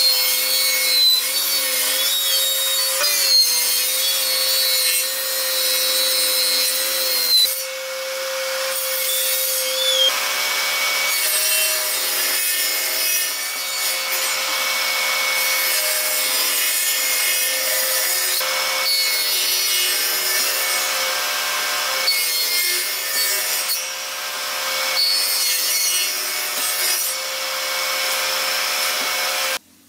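Table saw running with a steady whine, its blade cutting slots through a wooden block for a joint. The sound cuts off suddenly near the end.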